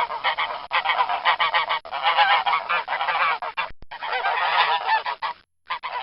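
Several geese honking continuously, their calls overlapping in a dense chorus, with two brief breaks, about two-thirds of the way through and near the end.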